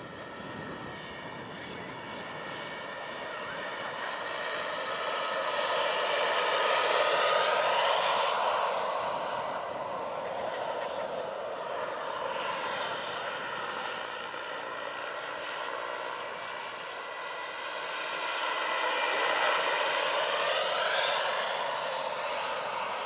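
Turbine engine and rotors of a 1/5-scale Bell 412 radio-controlled model helicopter in flight: a steady high turbine whine over the rotor noise, swelling louder twice as it flies close, about a third of the way in and again near the end, its pitch shifting around each peak.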